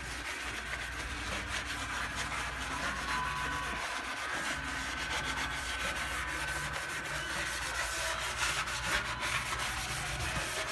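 Soapy sponge scrubbing the metal top of a Brastemp electric stove around the hot plates: a continuous scratchy rubbing made of many quick back-and-forth strokes.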